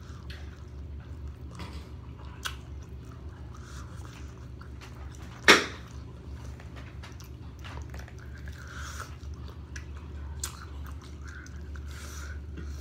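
Chewing and biting into sauce-covered fried chicken wings, with scattered small clicks over a steady low hum. One sharp, much louder snap comes about halfway through.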